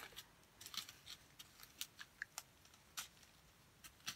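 Faint, irregular light clicks and crinkles of small plastic sachets of square diamond-painting drills being handled and sorted.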